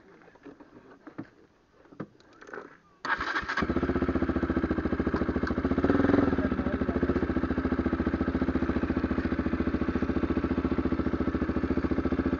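Single-cylinder KTM motorcycle engine starting about three seconds in: a brief crank, then it catches and settles into a steady, evenly pulsing idle. A slight rise in engine speed comes around six seconds in.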